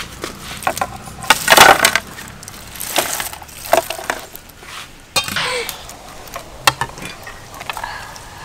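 Dishes and utensils clinking and knocking on a wooden table as food is served, a metal ladle among them, in a series of separate strikes with a louder clatter about a second and a half in.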